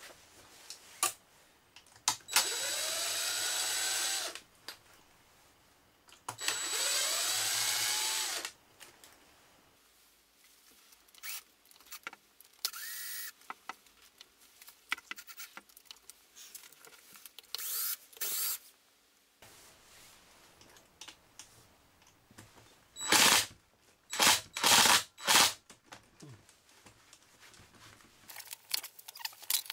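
Cordless impact driver backing out screws from an electric unicycle's casing. There are two runs of about two seconds each, the motor's pitch rising as it spins up, and a brief run a few seconds later. Several short, loud bursts come near the end, with small clicks and handling noise in between.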